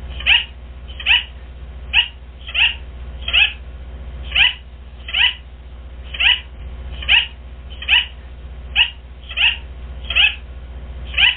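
An animal repeating short, high chirping calls, each one falling sharply in pitch, a little more than one a second, over a steady low hum.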